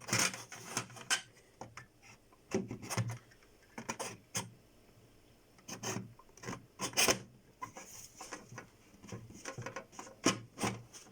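Irregular scraping, rubbing and knocking of a fridge-freezer's removable trays and fittings being moved about and pushed back into place by hand.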